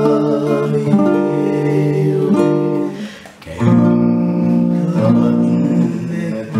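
Nylon-string classical guitar playing held, ringing chords; about three seconds in the sound briefly dies away before a new, fuller chord is struck.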